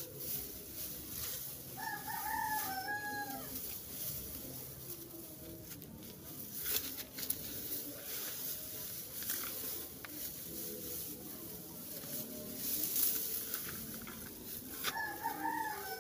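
A rooster crowing twice, each crow about a second and a half long, one about two seconds in and another near the end. Between the crows, the rustle and crackle of dry grass being handled and spread as mulch.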